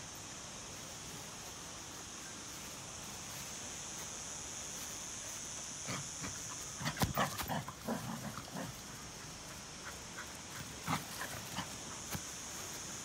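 A Kerry Blue Terrier puppy making a cluster of short sounds as it runs in play, about halfway through. A steady high hiss is underneath throughout.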